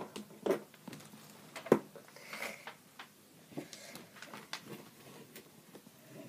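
Plastic Lego pieces being handled and snapped together: irregular small clicks and knocks, with one sharper knock a little under two seconds in.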